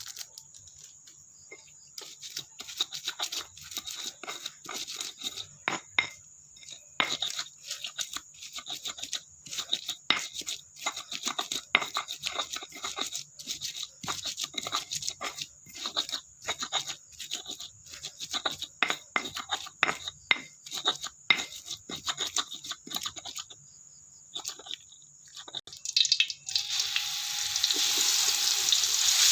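Kitchen utensil work: a long run of quick, irregular clicks and scrapes, a few each second. Near the end a frying sizzle starts and grows loud.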